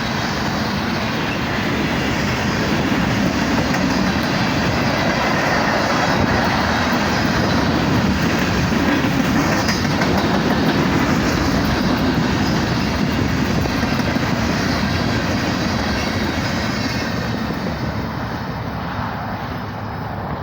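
Freight train of loaded rock hopper cars rolling past, steel wheels clacking over the rail joints. The sound swells to its loudest around the middle and eases near the end.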